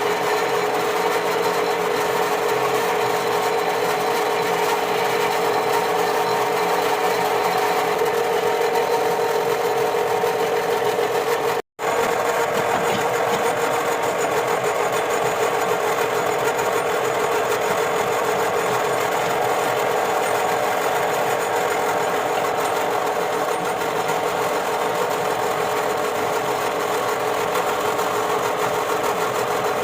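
A workshop machine running steadily with a constant-pitched hum, its sound dropping out for an instant about twelve seconds in.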